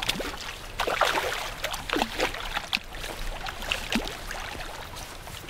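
Hooked trout splashing at the lake surface as it is played in close to the bank, several irregular splashes about a second apart.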